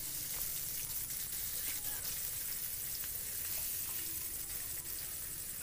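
Fish heads and fish pieces frying in hot oil in a pan: a steady sizzle with faint scattered crackles.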